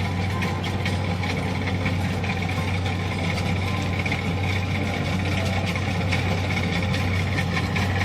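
Kubota DC-70 combine harvester's diesel engine running steadily, with a deep even hum.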